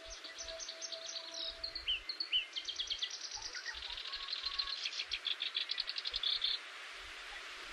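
Songbirds singing: phrases of quick repeated high notes and short sliding whistles, building to a fast trill that cuts off abruptly about a second before the end.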